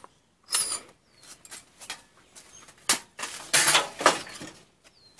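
Clinking and scraping of a gutted toaster's sheet-metal frame being handled and shifted on a table. There is a sharp click about three seconds in, and the loudest clatter comes just after it.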